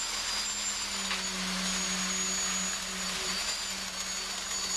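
Concrete mixer truck running steadily during a pour: an even droning hum with a faint high whine over a hiss.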